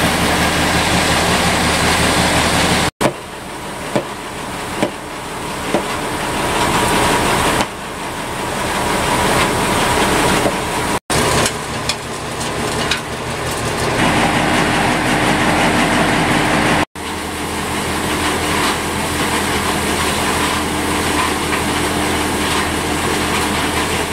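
Grain mill running as it grinds grain into meal: a loud, steady mechanical rumble with a rapid clatter. The sound breaks off sharply and resumes three times, about 3, 11 and 17 seconds in.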